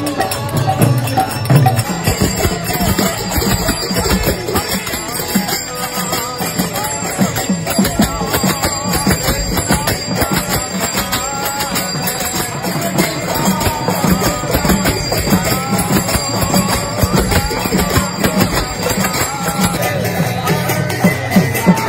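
Kirtan in a street procession: devotional chanting led into a handheld microphone, with a double-headed barrel drum and jingling hand percussion keeping a steady fast beat.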